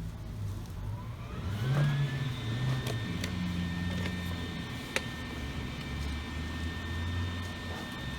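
Electric angle grinder spinning up with a rising whine, then running steadily at full speed, with a few sharp clicks over it.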